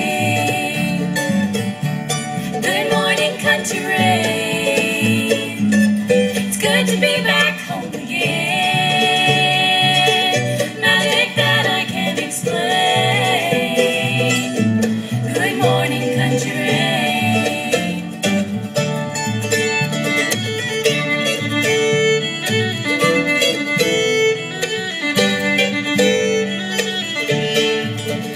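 Bluegrass band playing an instrumental break: fiddle carrying the melody with sliding notes over banjo and acoustic guitar, with steady low bass notes underneath.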